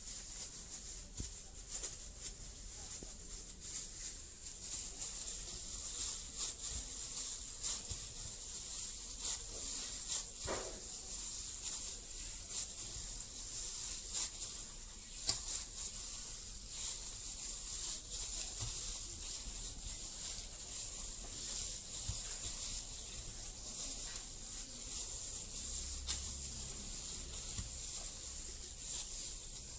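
A hand kneading and squeezing flour dough in a stainless steel bowl: soft, irregular rubbing and scraping strokes, over a steady high-pitched background hiss.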